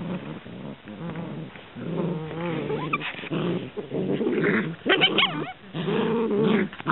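Bernese mountain dog puppies and their mother play-fighting, with repeated growls and a short high-pitched yelp about five seconds in.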